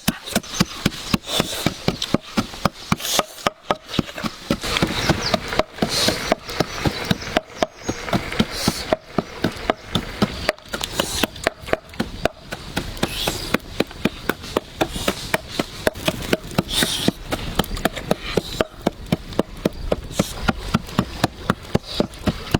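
Repeated chopping strokes, about three a second in an even rhythm, typical of a knife or cleaver coming down on a wooden chopping board while food is prepared.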